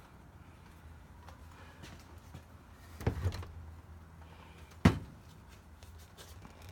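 A quick cluster of knocks about three seconds in and one sharp knock near five seconds, over a low steady hum.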